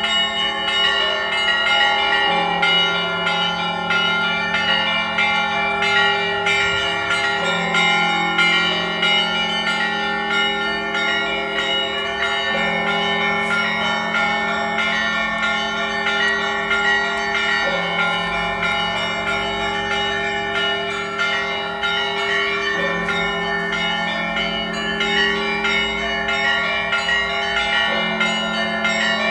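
Orthodox cathedral bells ringing: a rapid, continuous pattern of smaller bells over a large, deep bell struck about every five seconds.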